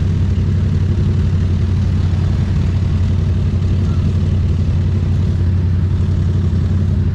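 Motorcycle engine running steadily, a constant low hum with no revving or cut-out.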